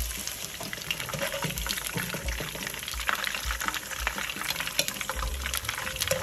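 Cauliflower florets frying in a pan of hot oil: a steady sizzle full of small crackles and pops.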